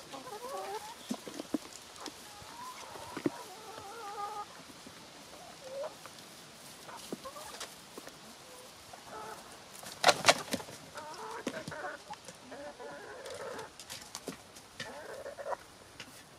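Chickens clucking as they feed, with scattered sharp taps and a cluster of loud knocks about ten seconds in.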